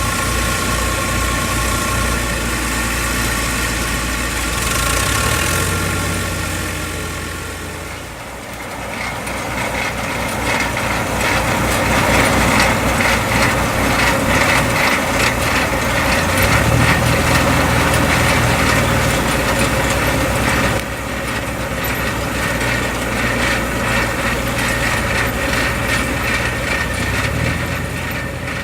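Diesel tractor engine running steadily, mixed with the rattle of potato-harvesting machinery. The sound dips about eight seconds in, then returns louder and more rattly. It drops suddenly about twenty-one seconds in.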